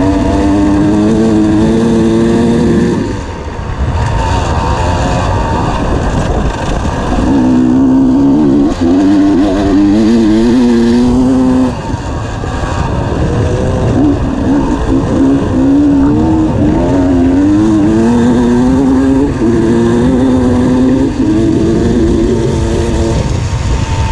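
Dirt bike engine running hard at high revs as the bike races along a gravel road, its pitch stepping and climbing through the gears, with wind noise on the helmet camera. The throttle closes briefly twice, about 3 seconds and 12 seconds in.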